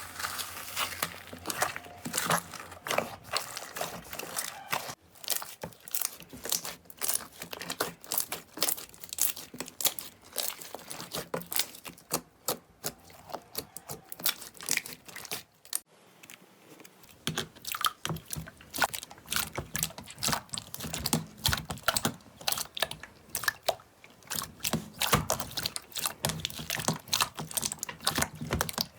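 Slime being squeezed and poked by hand, giving rapid, irregular crackling and popping clicks. There is a short pause a little past halfway, after which the clicking picks up again.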